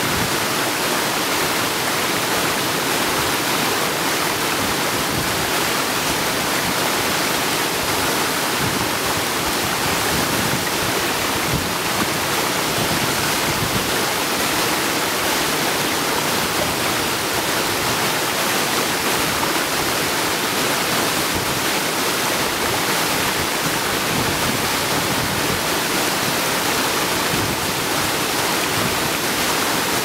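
Waterfall rushing: a steady, even wash of falling-water noise that holds level throughout.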